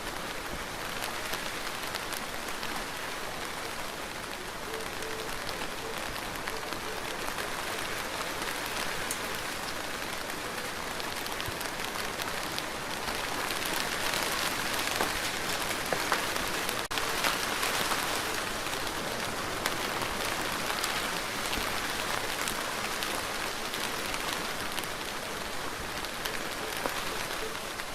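Steady rain falling, a dense hiss with individual drops ticking on a surface; it grows a little heavier about halfway through, then eases back.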